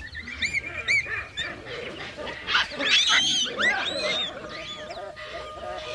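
A flurry of short, high, repeated animal calls, yelping or honking, loudest in a cluster about three seconds in. A held music note comes in near the end.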